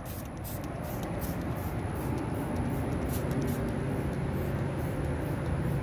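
A steady low engine hum over background noise, growing a little louder over the first couple of seconds and then holding steady.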